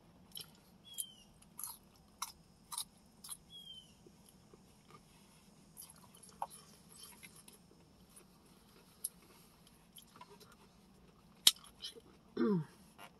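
A person chewing food close to the microphone: scattered soft wet mouth clicks and smacks. A sharper click comes about eleven and a half seconds in, followed shortly by a brief falling vocal sound.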